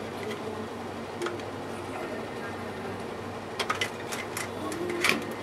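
Plastic 9-track tape reel clicking and knocking as it is handled and pressed onto the tape drive's reel hub: one sharp click about a second in, then a quick cluster of clicks in the last two seconds, the loudest just before the end. A steady low hum runs underneath.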